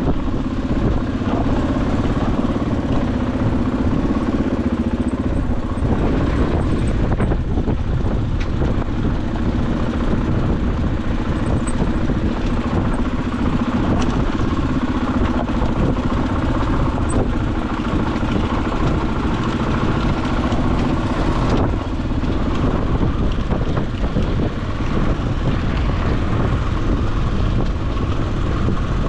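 Dual-sport motorcycle engine running as the bike climbs a rocky trail. Its note changes about six seconds in and again near twenty-two seconds.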